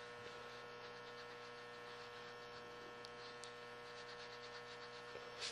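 Faint, steady electrical mains hum, with a brief soft noise just before the end.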